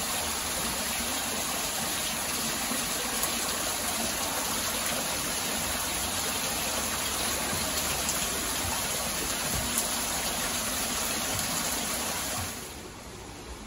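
Water falling and splashing steadily into a shallow pond, an even rushing hiss that stops abruptly near the end.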